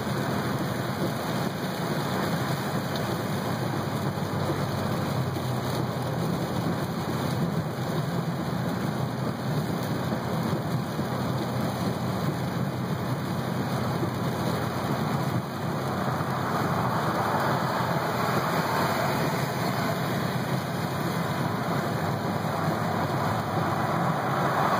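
Heavy rain falling on a car's roof and windshield, heard from inside the cabin, mixed with wet road and tyre noise. The rain grows a little heavier about two-thirds of the way through.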